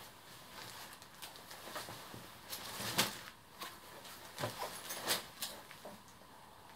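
A black babywearing jacket being pulled out of its clear plastic packaging bag and spread out: crinkling plastic and rustling fabric in short, irregular swishes, loudest about three and five seconds in.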